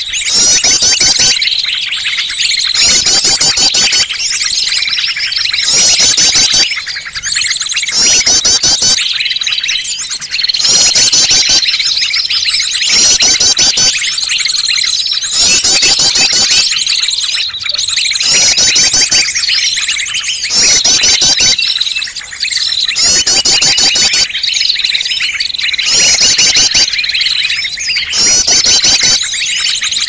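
Bird-lure recording of small songbirds chirping and trilling densely at high pitch, over a steady high note. The short phrases repeat about every second and a half, as in a looped lure track.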